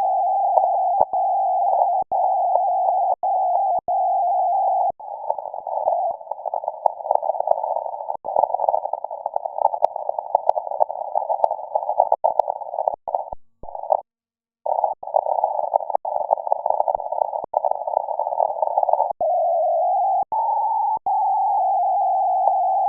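Shortwave radio receiver audio heard through a narrow filter: a steady band of hiss and tone that turns choppy and fluttering after a few seconds. It drops out briefly near the middle and settles back to a steady hum near the end.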